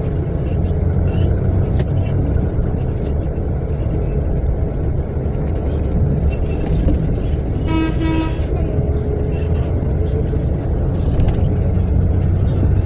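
Steady low rumble of a natural-gas city bus's engine and road noise, heard from inside the bus. About eight seconds in, a vehicle horn gives a single short honk.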